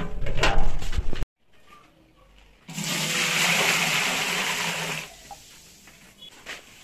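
Water poured from a bucket into a large aluminium cooking pot, a steady gushing splash that starts nearly three seconds in, lasts about two seconds and stops. It is preceded by about a second of loud, low knocking and handling noise that cuts off suddenly.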